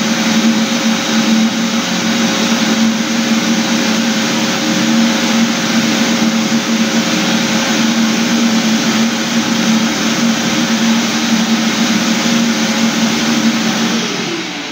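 Electric floor sanding machine running steadily with a loud motor hum and grinding noise; near the end the motor is switched off and its pitch falls as it spins down.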